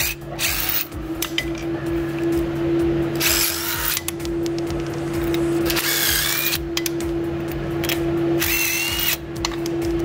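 Battery-powered impact wrench run in four short bursts, spinning off forklift drive-wheel lug nuts that were already loosened. A steady hum runs underneath.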